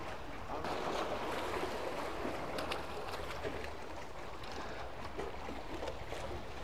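Sea water washing and lapping among concrete tetrapod blocks on a breakwater: a steady wash of small surf.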